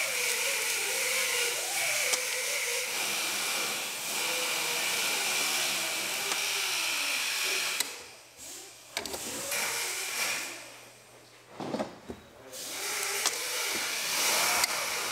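A power tool's motor runs with a hiss and a whine that wavers in pitch. It cuts out about eight seconds in, leaving a few light metal clicks, and starts again near the end.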